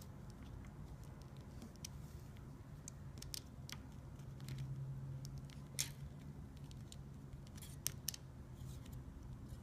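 Faint, scattered small clicks and taps of hands and a small tool working on an opened iPhone 4S as the new battery's connector is pressed into place, over a low steady hum.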